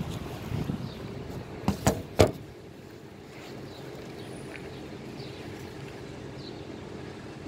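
Three sharp knocks in quick succession about two seconds in, the last the loudest, typical of a phone being handled as it is turned. Steady low outdoor background noise underneath, with faint short high chirps now and then.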